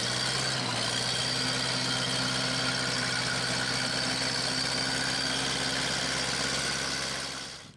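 A small engine running steadily at one constant speed, fading out near the end.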